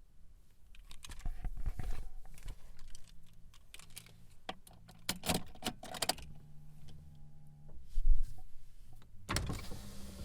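Keys jangling among clicks and rattles of car door handles and latches, then a car door shutting with a heavy thump about eight seconds in. A burst of noise near the end as the ignition is turned.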